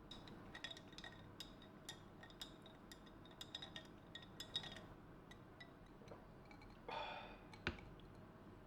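Small glass clinks repeating irregularly for about five seconds, each ringing briefly at the same pitch, then a short scrape and one sharp knock near the end.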